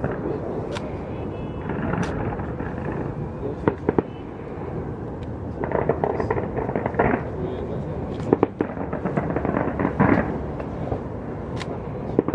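Aerial fireworks bursting in irregular bangs and crackles over the steady noise of a crowd's voices.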